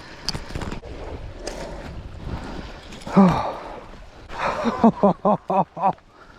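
A man breathing hard and letting out a drawn-out excited vocal sound about halfway through, then laughing in about five quick bursts near the end.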